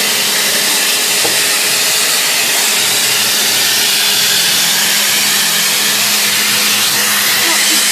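Build-a-Bear air 'bath' station blower running, blowing air over a stuffed toy: a steady rush of air with a low hum underneath.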